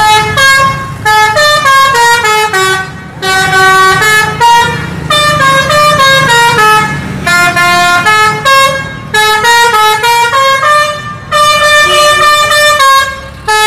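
Tour bus's multi-tone musical "telolet" horn playing short melodies of stepped notes, repeated in several bursts with brief pauses between them, over the low running of the bus's engine.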